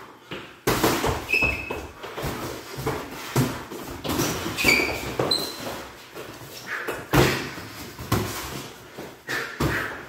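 Sparring: boxing gloves smacking and feet thumping and shuffling on a hardwood floor, with sneakers squeaking sharply a few times in the first half and the loudest smack about seven seconds in.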